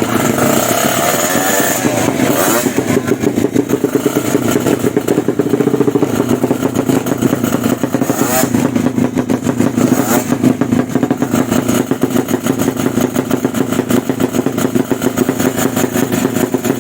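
Drag-race motorcycle engine running and revving, a rapid pulsing exhaust whose pitch rises and falls.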